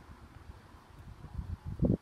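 Wind buffeting the microphone in uneven low gusts, with one louder thump of wind near the end.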